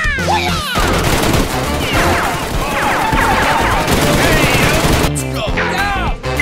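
Long burst of rapid automatic gunfire over background music, starting about a second in and breaking off about a second before the end.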